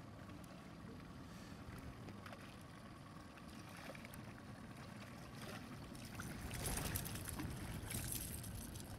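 Low steady wash of river water and wind around the boat, then from about six seconds in louder splashing as a hooked striped bass thrashes at the surface beside the boat.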